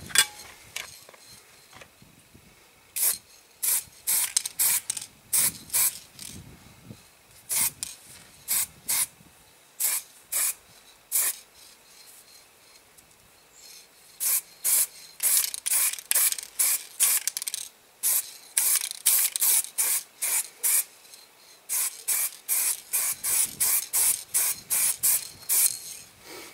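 Aerosol spray paint can hissing in many short spurts, a few a second, in runs separated by brief pauses.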